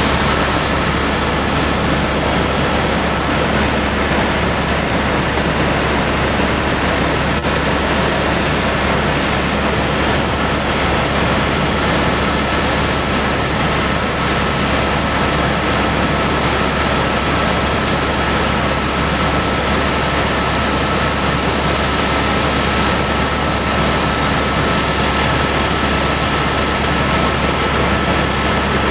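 Helicopter in flight: loud, steady engine and rotor noise with a low rumble and a constant high whine.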